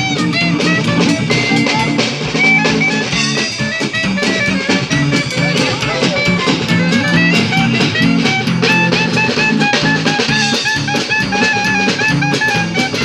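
Small live street jazz band playing Dixieland-style swing: a drum kit keeps a steady beat under guitar, with a lead melody line stepping from note to note above.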